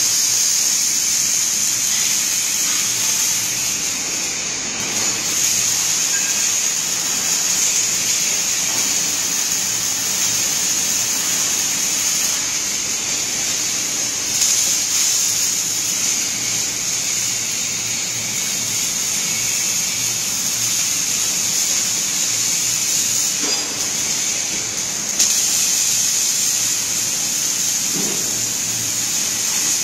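Robotic arc welder's welding arc hissing steadily against a steel frame, stopping and restarting a couple of times as the torch moves between joints.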